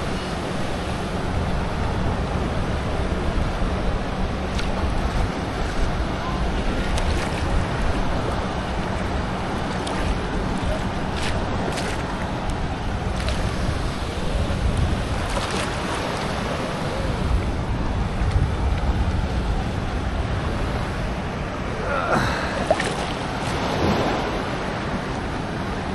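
Ocean surf washing, with wind buffeting the microphone, and a few short knocks scattered through.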